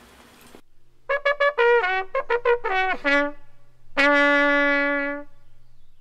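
Short trumpet fanfare used as a transition sting: a quick run of short notes, then one long held note that fades out.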